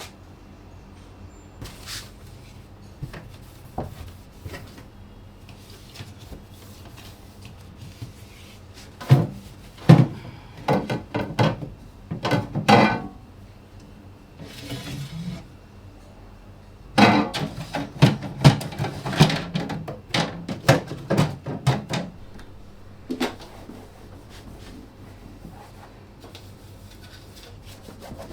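Household objects being handled and set down, with scattered single knocks and two busy stretches of knocking and clatter, the first about nine seconds in and the second from about seventeen seconds.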